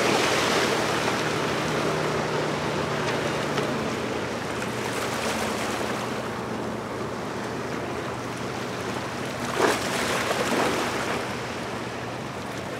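A motorboat running through the water: wake and water rushing over a steady low engine hum, with a brief louder rush about ten seconds in.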